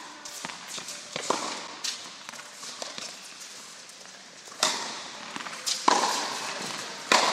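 Tennis balls struck by rackets and bouncing on an indoor court: a string of sharp pops with a short echo from the hall, the loudest three coming about a second apart in the second half, with lighter hits and footsteps between.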